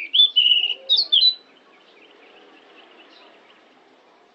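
Pied bushchat (decu) singing one short song phrase of several high notes, about a second and a half long, at the very start.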